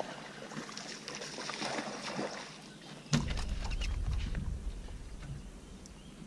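A hooked bass splashing at the water's surface as it is reeled up to the boat. About three seconds in, a sharp knock as the fish is swung aboard, followed by a couple of seconds of low rumbling that fades.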